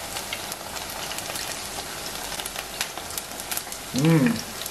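Cod fritters in thin batter frying in hot oil in a pan, a steady sizzle full of small crackles. A person makes a brief vocal sound about four seconds in.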